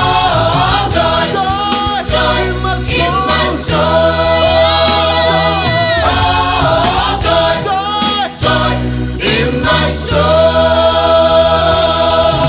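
Gospel song with a choir singing held notes over a steady bass and band accompaniment.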